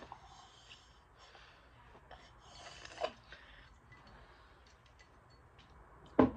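A person drinking juice from a glass: faint sips and breaths, and a breathy exhale about three seconds in. A short, sharp knock comes near the end.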